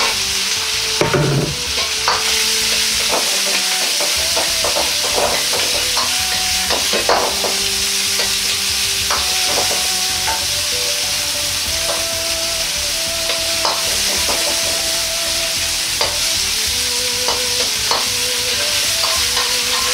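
Komatsuna stems and Sichuan pepper stir-frying in hot oil in a wok: a steady sizzle, with a metal ladle scraping and clinking against the wok many times as the greens are tossed.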